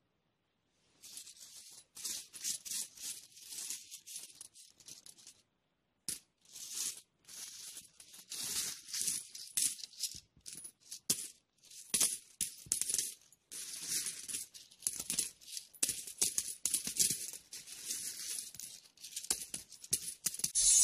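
Euro coins, mostly two-euro pieces, clinking and jingling against each other as a hand picks them up and drops them back onto a pile of coins. It comes in irregular runs of clinks, starting about a second in, with a short break a little after five seconds.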